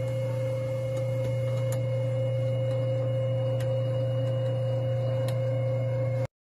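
A steady machine hum with a constant mid-pitched tone over it and a few faint ticks, cutting off abruptly near the end.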